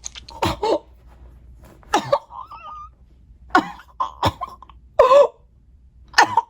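A person coughing and gasping in short, separate bursts, about ten over several seconds, with brief pauses between.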